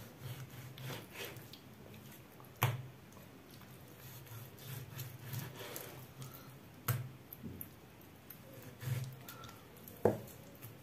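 Kitchen knife slicing raw chicken fillet on a plastic cutting board: soft cutting and rubbing sounds, with three sharp knocks of the blade striking the board.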